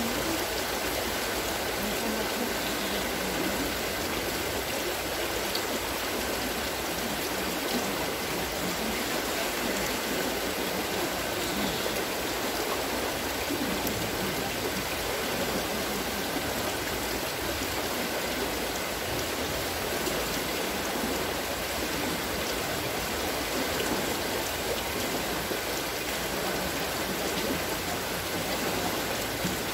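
Wooden water-lifting wheel (noria) turning, its buckets pouring and spilling water in a steady splashing and dripping rush.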